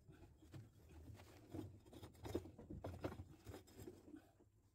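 Faint handling noise: scattered light clicks, taps and rustles over a low hum.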